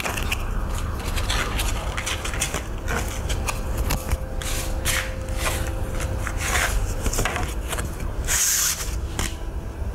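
Irregular scraping and rubbing handling sounds, made of many short scratchy strokes, over a steady low hum.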